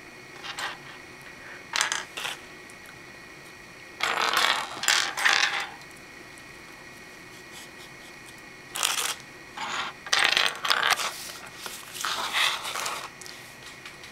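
Small hard plastic Lego pieces rattling and clicking against each other and the tabletop as they are handled, in short clattering clusters. The longest clusters come about 4 s in and from about 9 s to near the end.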